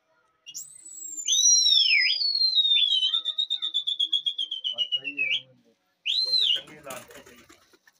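A man's loud whistles calling the pigeons: a high falling whistle, an arching up-and-down whistle, then a long trilling whistle that slides slowly down in pitch. About six seconds in comes another short arching whistle, followed by a sharp click.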